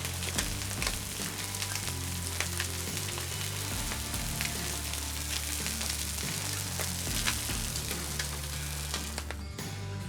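Thick bologna slices sizzling and crackling in avocado oil on a flat-top griddle, with scattered pops of spitting oil. The sizzle falls away near the end, leaving background music.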